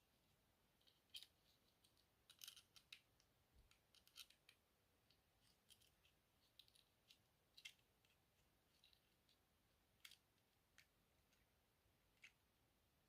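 Faint, irregular small clicks and scrapes of a screw being turned back into a Zippo lighter, the screw holding its newly fitted rubber seal.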